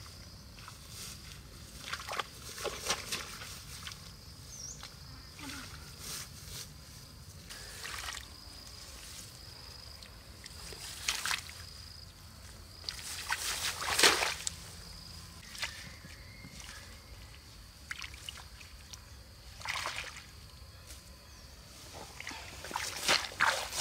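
Hands rummaging through wet, waterlogged grass: scattered rustles with small wet sloshing and splashing sounds, the loudest about 14 seconds in.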